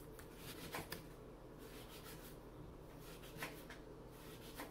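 Faint, scattered key clicks from a MacBook Air laptop keyboard as a web search is typed, a few taps in the first second and a couple more later, over steady low room tone.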